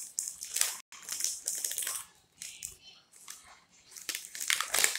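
A crinkly plastic snack wrapper being handled and pulled open by hand, in irregular crackles and rustles.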